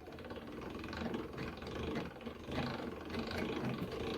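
Old pillar drill running and drilling a hole through a belt-grinder drive wheel, a steady motor hum with the bit cutting, starting right at the beginning.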